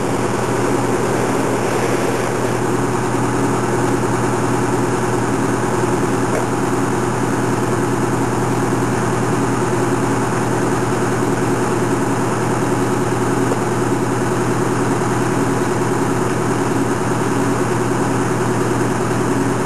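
Fire engine's engine running steadily at idle, a constant low drone with no change in speed.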